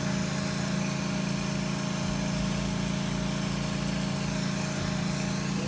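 Steady, even drone of a motorised machine from building work on the house, with a strong low hum.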